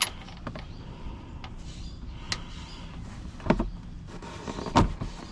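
A few sharp metallic knocks and clicks, the two loudest about three and a half and five seconds in, as a wrench and socket on the crank pulley bolt strain against an engine that will not turn by hand. The owner takes this for an engine seized after being run out of oil.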